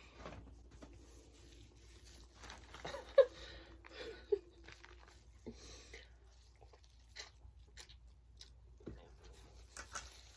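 Quiet eating sounds: chewing and scattered small clicks and taps of handling food, with two sharper clicks about three and four seconds in.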